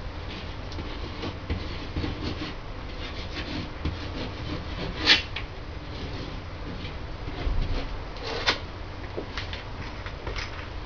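Marker pen scratching and squeaking across a painted wall in many short strokes as handwriting goes on, with two louder strokes about five and eight and a half seconds in.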